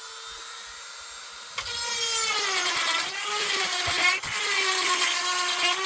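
A small high-speed electric power tool running, then cutting into the steel felling dog to enlarge its mounting hole; about one and a half seconds in it bites, and its whine wavers and dips under the load.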